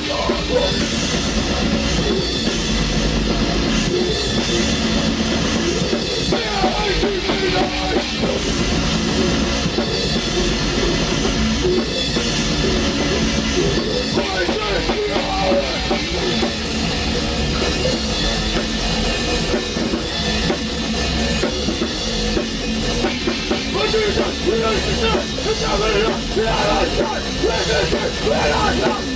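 A black metal band playing live in rehearsal: fast drum kit with bass drum and cymbals under distorted guitars, loud and without a break.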